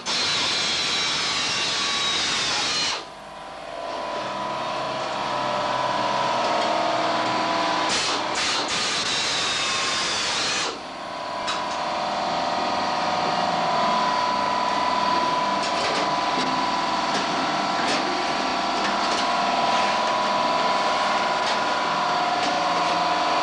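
Electric drill running under load in three long spells, its motor whine steady, with short dips about three seconds and about eleven seconds in.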